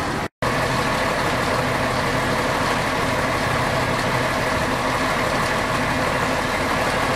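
An emergency vehicle's engine idling steadily, with a brief total dropout about a third of a second in.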